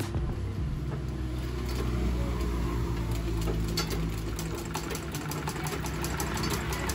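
Black Singer sewing machine running steadily while stitching a seam in bed-sheet fabric: a low mechanical hum with fast, fine needle ticks.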